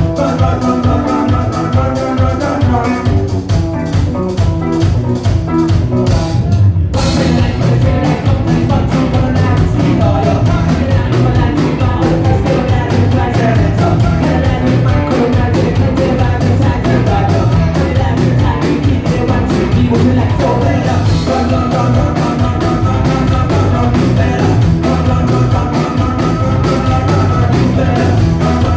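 Live rock band playing amplified music: drum kit, electric guitar and vocals, with a steady beat.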